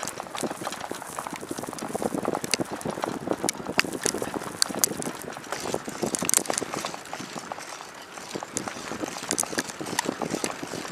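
Footsteps crunching on loose ground, a dense, irregular crackle of small crunches.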